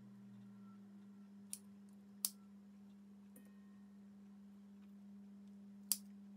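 Kitchen scissors snipping small mackerel behind the head, giving three short sharp clicks as the blades bite through bone. A faint steady low hum lies under them.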